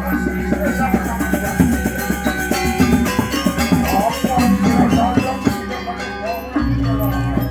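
Balinese gamelan music: bright metallic gong-chime and metallophone tones struck in rapid succession, ringing over a steady low drone.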